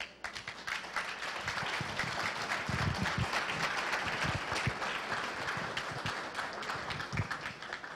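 Audience applauding, many hands clapping together, thinning slightly near the end.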